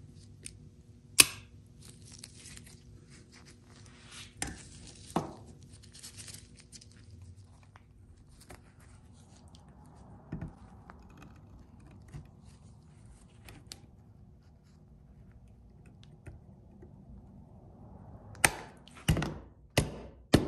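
Hand work on a greased coil spring in a steel Porsche Recaro seat hinge: scattered clicks and scraping of pliers on the spring and hinge plate, with a sharp click about a second in. Near the end, about four knocks of a mallet tapping the spring down into the hinge.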